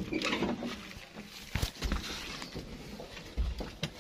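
Scattered knocks and thumps with rustling handling noise. There is a sharp knock about one and a half seconds in and another near the end.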